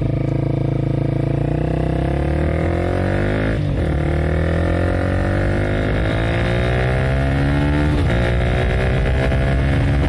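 Honda CBR150R's single-cylinder four-stroke engine under hard acceleration, its pitch climbing steadily through each gear, with upshifts about four and eight seconds in; the bike is pulling strongly.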